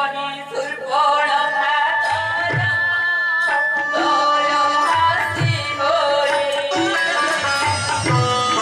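Music with a singing voice carrying a melody over held tones and recurring low hand-drum strokes.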